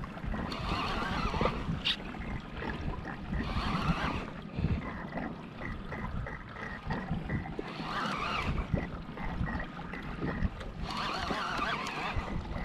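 Ocean chop sloshing and slapping against a kayak hull in surges every few seconds, over a steady wind rumble on the microphone.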